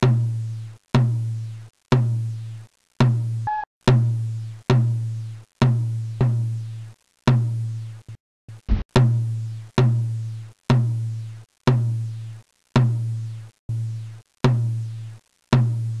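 Background music of a deep drum struck about once a second, each hit a low ringing tone that dies away before the next, with a quick cluster of smaller hits about eight and a half seconds in.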